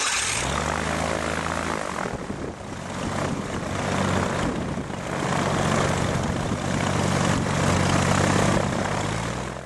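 Chevrolet car engine converted for aircraft use, running on a test stand and turning a propeller just after starting. Its pitch drops as it settles in the first couple of seconds, then it swells up in speed twice before the sound cuts off abruptly near the end.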